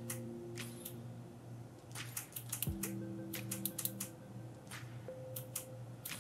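Small plastic push-buttons on a USB soldering iron's handle clicking, an irregular series of short, sharp clicks.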